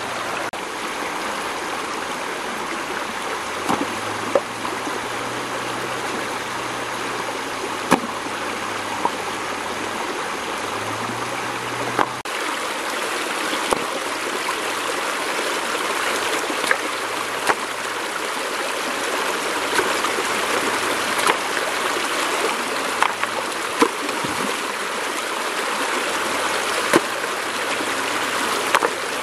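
Shallow stream running fast over rocks, a steady rushing and splashing. About a dozen short, sharp knocks and splashes stand out, made as stones are lifted and set down in the water.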